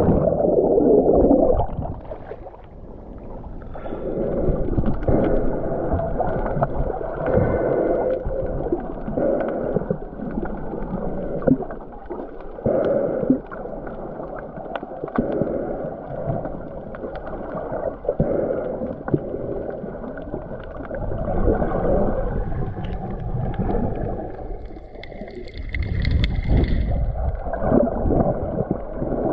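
Muffled underwater sound from a camera in the water while snorkeling: water sloshing and gurgling in uneven surges, dull and cut off at the top.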